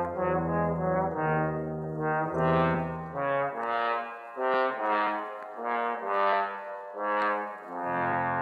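Brass music in held notes led by low trombone-like parts, from one of the contest tunes on a vintage children's story record; the low bass notes drop out about three seconds in, leaving higher notes, and return near the end.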